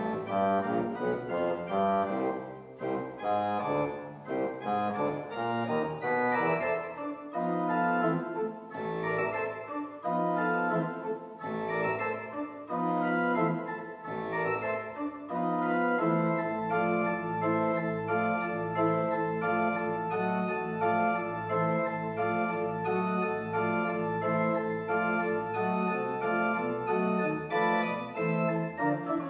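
Pipe organ playing a fast, unbroken stream of notes; from about halfway through, held low notes sound beneath the moving upper line.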